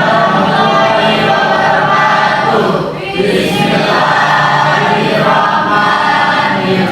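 A class of students' voices chanting together in unison, with a short break about three seconds in.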